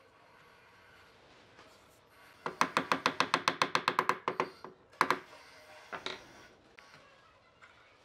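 A plastic-faced mallet tapping rapidly, about ten light blows a second, driving a thin bent wood strip into a slot in a wooden tabletop's edge. The run of taps lasts about two seconds. One sharper knock and a couple of softer ones follow.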